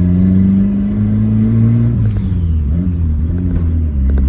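Turbocharged, carburetted Volkswagen Gol AP 1.8 four-cylinder engine pulling as the car accelerates, its note rising slowly. About two seconds in the revs drop and waver before it settles into a steady run.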